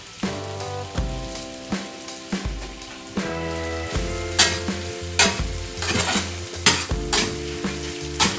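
Grated potato hash brown frying in butter in a pan, sizzling steadily. From about four seconds in, a spatula knocks and scrapes sharply against the pan several times.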